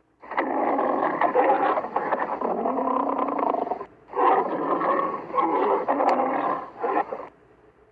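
Lion-like creature roar sound effect: two long roars, the first about three and a half seconds, the second about three seconds, with a brief break between them.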